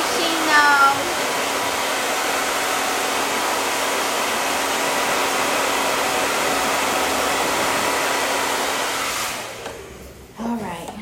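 Handheld hair dryer blowing steadily, switched off about nine seconds in.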